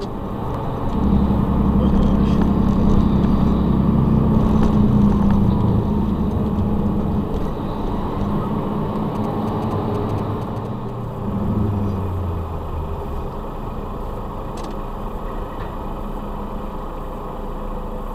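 Truck's diesel engine and road noise heard inside the cab: a steady low drone that swells about a second in, then eases off past the middle.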